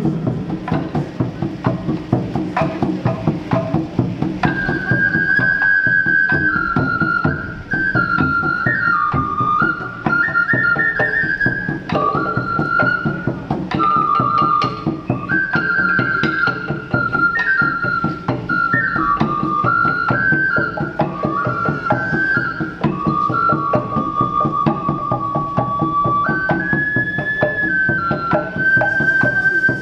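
Music in the style of ancient Mexico: fast, steady hand-drumming, joined about four seconds in by a high wooden-or-clay flute playing a stepping melody of held notes.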